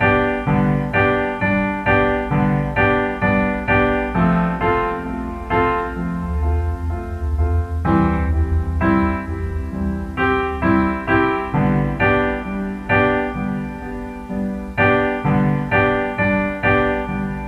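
Background music: piano playing a steady pattern of repeated notes, about two a second, over a sustained low bass.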